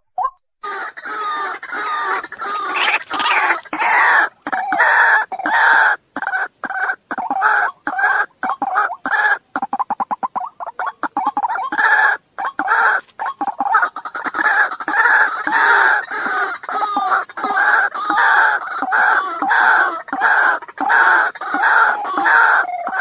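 White-breasted waterhen calling: loud, harsh "ruak" notes repeated about one and a half times a second, with brief stretches of rapid short notes in between.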